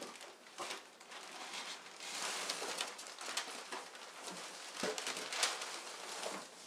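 Packing paper and a brown paper wrapping rustling and crinkling as they are handled and pulled out of a cardboard box, with many short crackles, busiest from about two seconds in.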